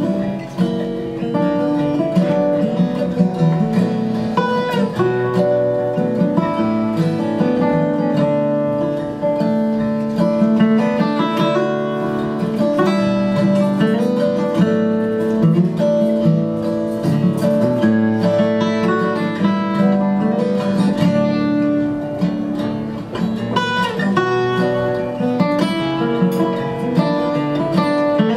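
Two acoustic guitars playing an instrumental duet live, with quick runs of picked notes over a steady accompaniment.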